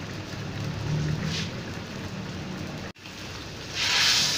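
Chicken curry simmering in a wok, a steady bubbling hiss. After a momentary break about three seconds in, a louder burst of sizzling comes near the end as a metal spatula stirs the thickening sauce.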